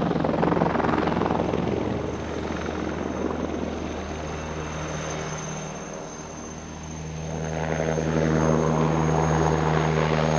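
Eurocopter Tigre attack helicopter flying a display pass: steady rotor and turbine noise that fades about six seconds in, then grows louder again as the helicopter comes back.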